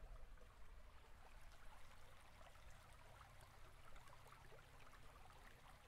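Near silence: faint hiss with a low steady hum.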